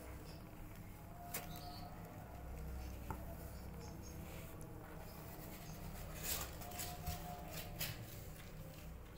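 Newborn kittens suckling at their mother cat's teats: small sucking clicks and faint squeaks, several bunched together between about six and eight seconds in, over a low steady rumble.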